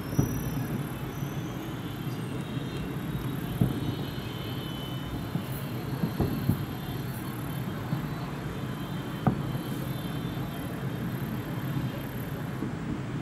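Aerial fireworks display: a steady rumbling wash of shell bursts and crackle, with a handful of sharper bangs standing out every few seconds.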